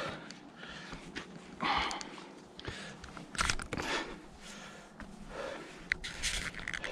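A hiker's footsteps scuffing and crunching on a steep, wet, slippery path, with a few clicks. Breaths come at intervals of a second and a half or more.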